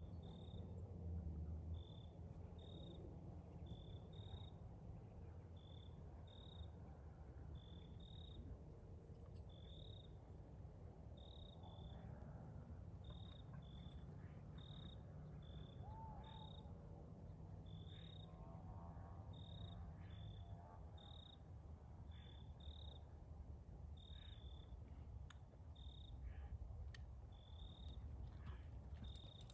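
A cricket chirping: short, high chirps at a single pitch, about one a second, over a faint low rumble.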